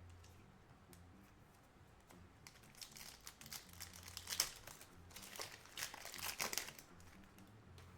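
Trading cards and their plastic packaging being handled, with faint bursts of crinkling and clicking in the middle few seconds.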